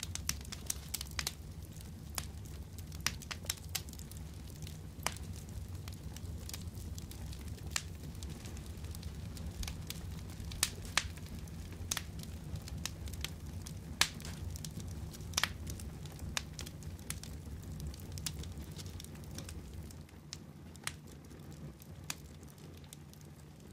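Sparse, irregular crackles and clicks over a steady low hum.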